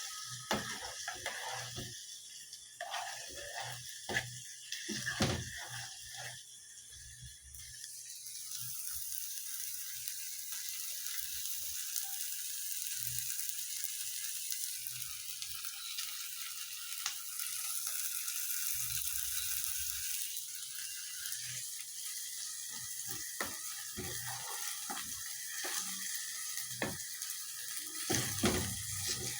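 A pan of nopalitos and eggs frying, with a steady sizzle that sets in about eight seconds in. A few knocks and clicks come before it and again near the end.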